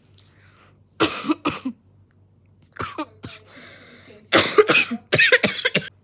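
A woman coughing in several loud, sharp fits, with a softer sniffing breath through the nose between them.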